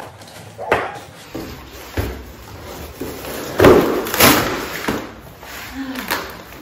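Long cardboard shipping box being opened and unpacked by hand: irregular scraping, flapping and knocks of cardboard, with plastic wrapping crinkling as the contents are pulled out. The loudest stretch comes about halfway through.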